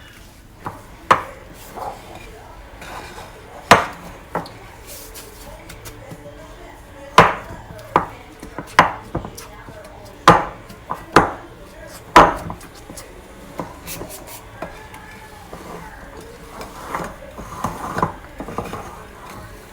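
A utensil knocking and scraping against a mixing bowl as thick macaron batter is mixed: about a dozen irregular sharp knocks, the loudest bunched in the middle, with softer clatter near the end.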